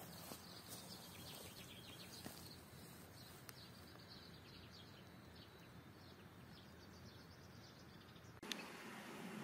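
Near-silent outdoor ambience with faint bird chirps scattered through it. Near the end a click, then the background noise steps up and stays steady.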